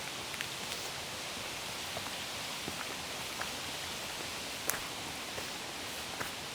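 Steady rush of a creek's flowing water, with a few light clicks and one sharper click about halfway through.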